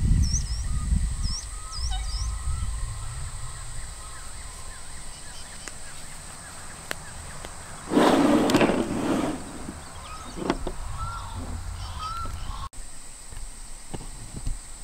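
Small birds chirping by the water, with wind rumbling on the microphone in the first couple of seconds and a loud harsh honking call about eight seconds in.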